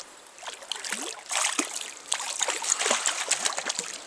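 A hooked brown trout splashing and thrashing at the surface of a stream as it is played, over the steady trickle of flowing water; the splashing starts about a second in and goes on in quick irregular bursts.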